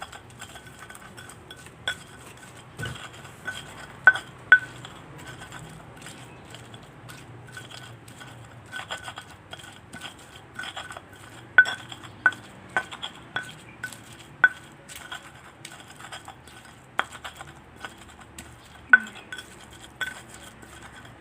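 Irregular sharp clinks and knocks of a utensil against a dish while chili sambal is ground and mixed in a cobek stone mortar, a few strikes much louder than the rest.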